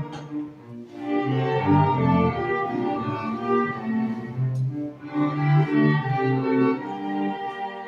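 Small ensemble playing music with bowed string instruments, a melody over lower sustained notes, the notes changing every half second or so.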